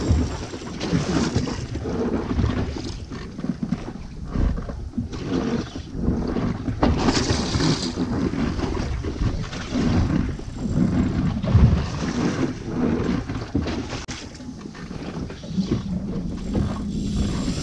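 Wind buffeting the microphone in irregular gusts, with water sloshing against a boat's hull.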